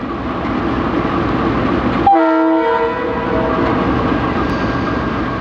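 KiwiRail diesel-electric locomotive passing at a level crossing, its engine and wheels making a steady rumble. About two seconds in, the multi-tone horn sounds one short blast.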